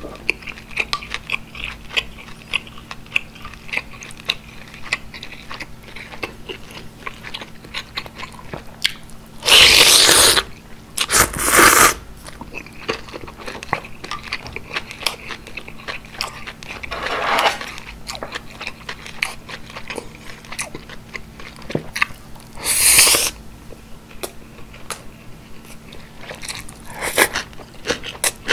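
Close-miked chewing of a mouthful of gukbap, the soft clicks and squelches of the mouth going on steadily. A few loud, second-long rushing mouth sounds stand out, about ten, twelve and twenty-three seconds in.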